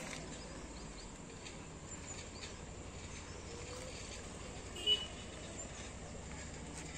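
Quiet pondside outdoor background with faint scattered bird chirps, and one short, sharper high chirp about five seconds in.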